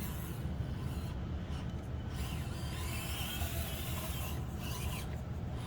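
Axial SCX24 micro RC crawler's small electric motor and gear drive whirring steadily as the truck crawls along, with its tyres rubbing over the course surface.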